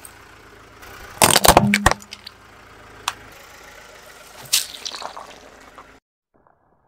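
A car tyre rolling over and crushing objects on concrete: a burst of sharp cracks and crunches about a second in, a single crack around three seconds, then a wet crackling squish as the tyre flattens a soft ball. The sound cuts off abruptly about six seconds in.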